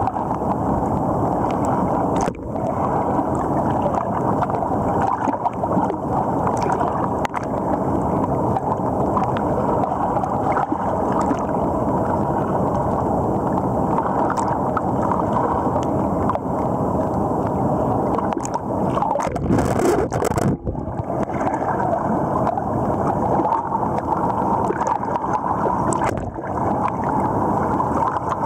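River water rushing and splashing around a camera held at the surface of a fast current, with a few short knocks from handling.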